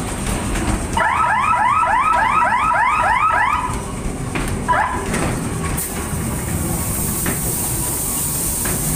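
Ghost train scare sound effect: an electronic alarm-like warble of rapid rising sweeps, about four a second, lasting a couple of seconds, with one more sweep shortly after. The ride car rumbles along its track underneath, and a hiss comes in near the end.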